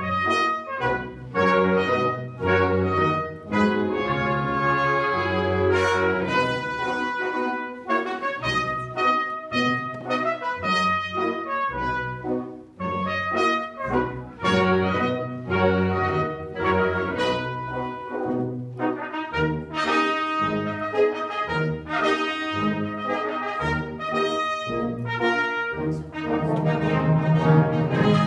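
A concert wind band playing live: clarinets, flutes, saxophones and brass together, with the notes changing in quick succession over a moving bass line.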